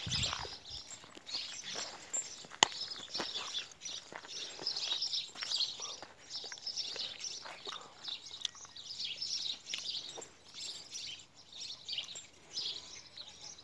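Small birds chirping continuously, with footsteps crunching on a stony dirt track and one sharp click about two and a half seconds in.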